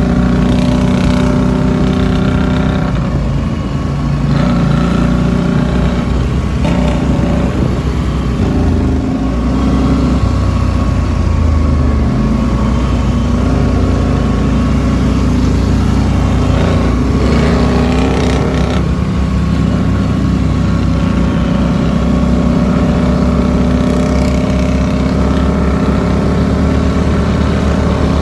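ATV engine running under way, heard from the rider's own machine, with the pitch shifting a few times as the throttle changes.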